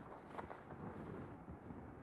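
Quiet room noise with a faint click about half a second in.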